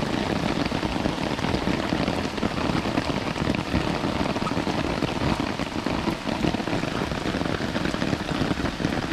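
Steady rain falling, with a dense run of close drop hits.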